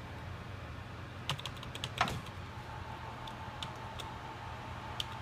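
Computer keyboard keys pressed during boot to get into the BIOS: a quick cluster of clicks about a second in, then single taps every second or so. A steady low hum runs underneath.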